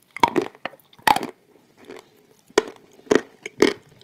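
Close-up crunching and chewing of crisp wafer bars: a series of sharp, crackling crunches as the wafer is bitten and broken between the teeth.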